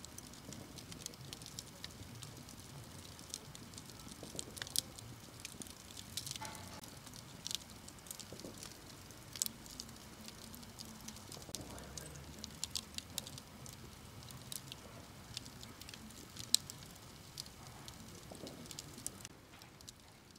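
Campfire crackling, with irregular sharp snaps and pops over a low hiss.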